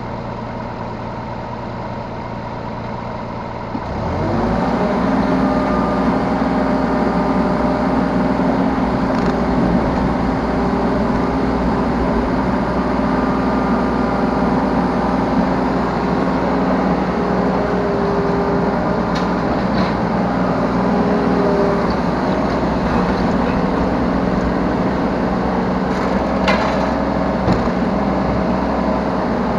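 Yanmar B3 Sigma 3-tonne mini excavator's diesel engine running. It rises to a higher, steady speed about four seconds in, with a few sharp knocks of the machine working.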